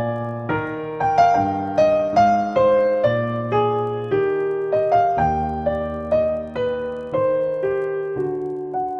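Piano music: a slow melody of single notes, one struck about every half second, over held bass notes.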